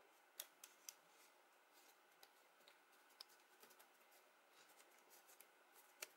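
Faint crackles and clicks of a freshly glued pink paper piece being folded and pinched together by hand.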